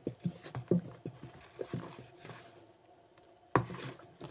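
Wooden paddle stirring soapy liquid in a plastic tub, knocking against the tub in irregular clunks: several in the first two seconds and a louder one about three and a half seconds in. The stirring is breaking up lumps of powdered detergent to dissolve them.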